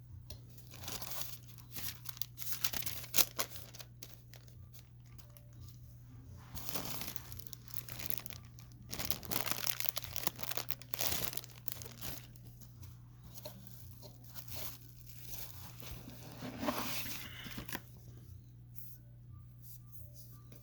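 Packaging torn open and crinkled by hand: irregular bursts of tearing and rustling with small clicks, heaviest about 2 to 3 seconds in, again from about 7 to 11 seconds, and once more near 17 seconds, over a steady low hum.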